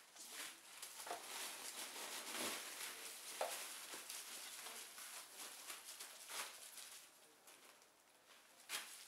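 Plastic bubble wrap crinkling and crackling in quick, irregular clicks as ferrets scramble and dig over it, fading down for a moment near the end before one last sharp crackle.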